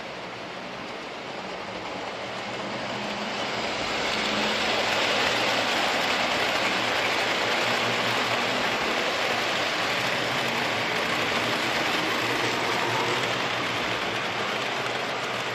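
A train passing. Its rumbling noise builds over the first few seconds, holds steady, and eases slightly near the end.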